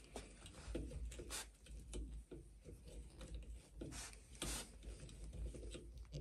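The awl of a Mikov Stovka pocket knife being twisted back and forth into a pine board: quiet, irregular scraping of steel on wood, with a few sharp clicks. The awl is not sharpened, so it bores slowly and with effort.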